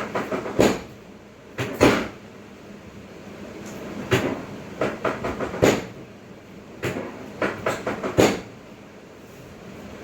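Irregular groups of sharp knocks and clacks, a few in quick succession each time, over a steady background noise.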